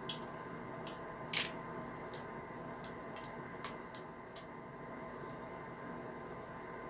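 Faint, irregular small clicks and scratches of a tool picking at the plastic seal on the cap of a glass hot sauce bottle, the loudest about a second and a half in.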